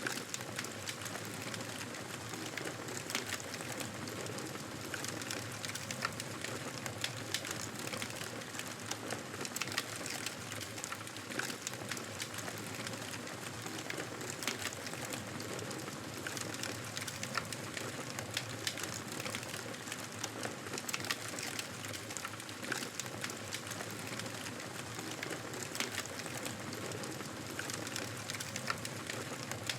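Wood fire crackling in a fireplace: a steady hiss dotted with many small pops and snaps.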